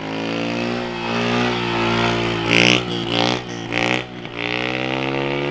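A small single-cylinder Honda CG Start motorcycle engine revving high through a wheelie. The pitch wavers and dips briefly a few times as the rider works the throttle, with the revs cutting at the limiter.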